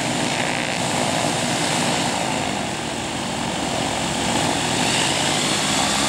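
The Che-29 seaplane's twin Rotax 912 flat-four engines running steadily at warm-up idle, with their propellers turning, heard from inside the cabin; the engines are being warmed to about 50 degrees after a cold start.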